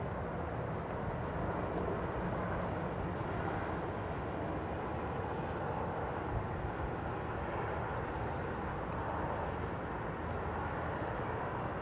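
Steady outdoor rumble of distant road traffic: an even, low hum with no clear single vehicle standing out.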